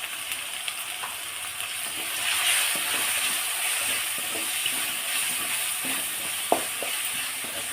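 Onions and ginger-garlic paste sizzling in hot oil in a kadai, frying until the raw smell cooks off, with a steady hiss and small scrapes and taps as it is stirred. One sharp knock on the pan near the end.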